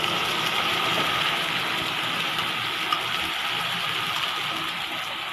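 Sauce sizzling as it hits hot oil and fried spices in a frying pan: a steady hiss that slowly eases off.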